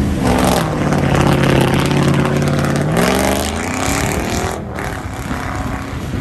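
Pickup truck engine revving hard as its tyres spin through deep mud, with loud mud spraying off the wheels. The engine holds a steady pitch for a couple of seconds, climbs about three seconds in, then drops away.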